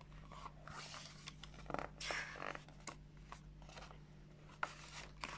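Faint rustling and light taps of a picture book's paper pages being turned and handled.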